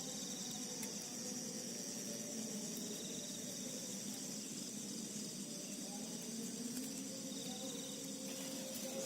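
Night-time chorus of crickets trilling steadily at two high pitches, over a lower continuous drone.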